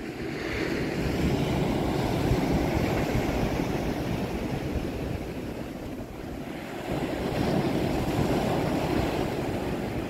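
Sea surf breaking and washing up a sandy beach, swelling twice: once about a second in and again about seven seconds in.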